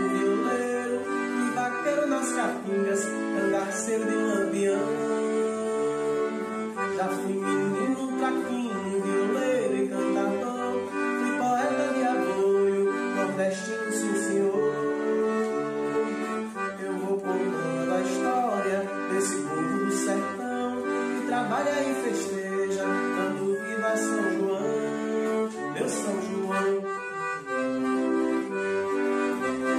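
Accordion-led forró music with sustained squeezebox chords and melody over light, bright percussion.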